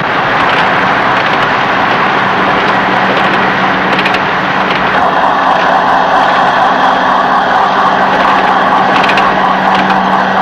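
Steady engine roar with a constant low hum underneath, unbroken throughout, with a few faint clicks.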